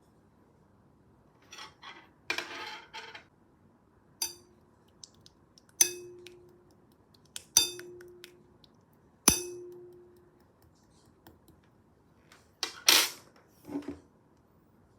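Sharp clinks of a hard object being tapped. The loudest three come about every second and a half, each followed by a short ring. Brief rustling and crinkling comes near the start and again near the end.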